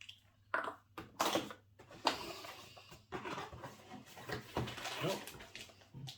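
Camera packaging being handled: rustling and light knocks of cardboard and wrappers as the box contents are taken out, in irregular short bursts.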